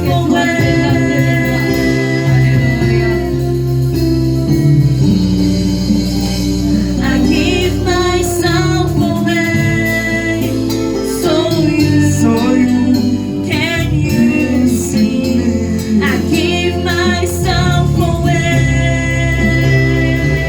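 Gospel worship music with singing over a steady bass and sustained keyboard chords.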